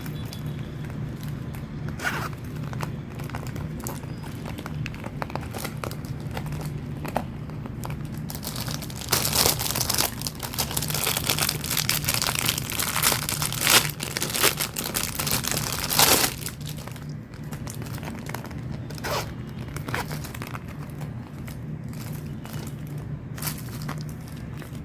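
Packaging of a pencil case crinkling and tearing as it is unwrapped, in irregular crackly bursts that grow busiest and loudest in the middle, over a steady low hum.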